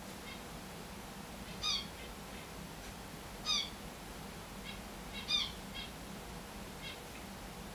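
Finches calling: short, single call notes, three louder ones about two seconds apart (the loudest a little past halfway) with fainter answering notes in between.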